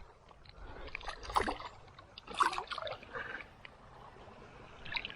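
Faint, irregular small water splashes and light knocks at a kayak while a caught fish is handled.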